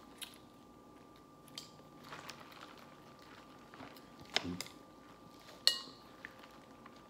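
Sparse clicks and knocks of eating a seafood boil by hand: crab and crawfish shells being cracked and handled, with one sharper, briefly ringing clink near the end.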